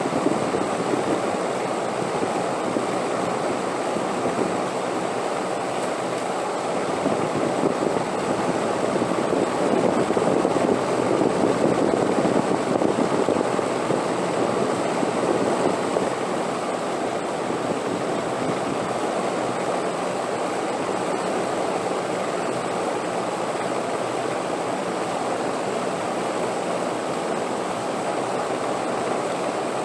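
Steady rushing wind, swelling a little partway through and then settling to an even level.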